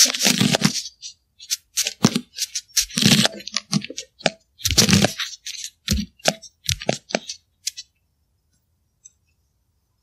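Irregular series of sharp clicks, cracks and scrapes, some in quick runs and a few fuller knocks among them. They die out about eight seconds in, with only a faint tick after.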